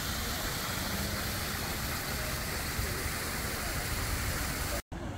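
Fountain water splashing steadily into a stone pool, a constant hiss-like rush that cuts off suddenly near the end.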